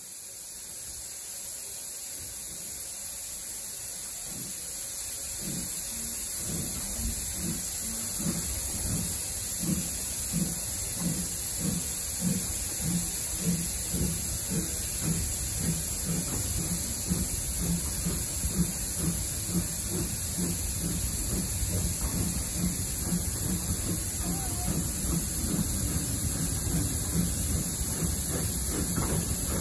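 Steam locomotive pulling away with its train. Exhaust beats build up from about five seconds in and settle into an even rhythm of roughly two a second, over a steady hiss.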